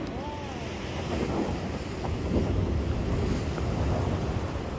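Wind buffeting the microphone with a heavy, uneven rumble, over the steady wash of sea waves against a breakwater. A short rising-and-falling whistle-like tone sounds right at the start.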